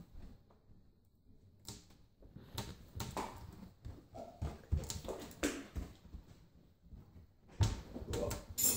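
Kitchen cabinet doors and drawer knobs knocking and clicking as toddlers pull and slap at them, in scattered irregular knocks that get louder and closer together near the end.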